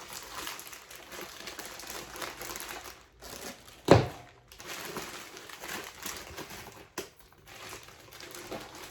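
Packaging rustling and crinkling as a package is handled and opened by hand, with one loud sudden thump about four seconds in and a short click near seven seconds.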